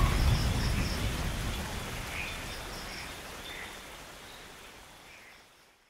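Steady rain hiss with a few faint chirps, fading out gradually to nothing.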